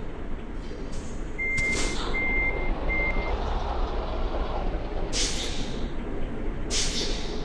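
Reversing alarm of a large vehicle beeping three times at one steady pitch, over the rumble of its running engine. Short, sharp hisses of released air come once alongside the beeps and twice near the end.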